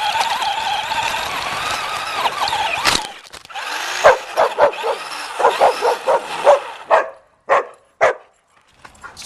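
A steady whirring noise that cuts off suddenly about three seconds in, then a puppy barking in a quick run of short, high yips that stop near the end.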